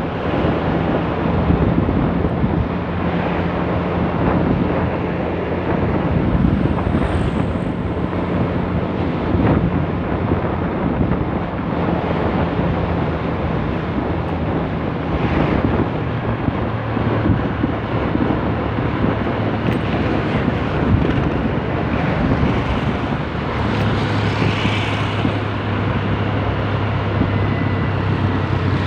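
Motor scooter's engine running under way, heard from the rider's seat with heavy wind rush on the microphone. Its low engine note steps down lower about halfway through.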